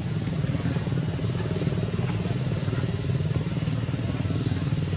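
A small engine running steadily, a low even rumble with no change in speed.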